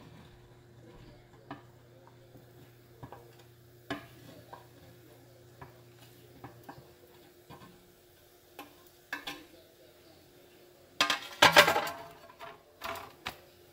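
Chopped vegetables tapped and scraped off a cutting board into a nonstick skillet, a run of light scattered clicks and taps. About eleven seconds in comes a louder burst of a utensil scraping and stirring the vegetables in the pan.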